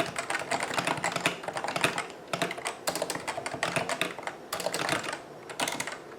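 Fast typing on a Cooler Master CM Storm Novatouch TKL keyboard with Topre hybrid capacitive switches: rapid keystrokes in runs, with short pauses about two seconds in and near the end.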